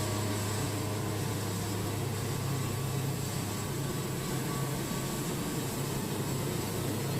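Wood-Mizer portable band sawmill running steadily, its engine humming as the band blade saws a pine log.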